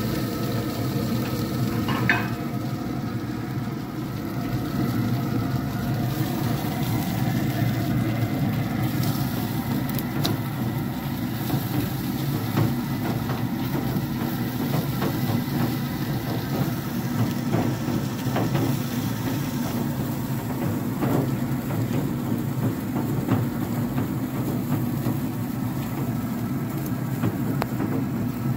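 Traeger pellet grill running with a steady low hum, while metal tongs and a spatula click now and then against the steel grates as burger patties are moved.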